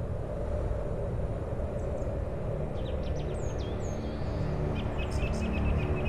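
Small songbirds chirping, with a few short downward-sweeping whistles, from about two seconds in, over a steady low rumbling background noise. Faint steady low tones come in during the second half.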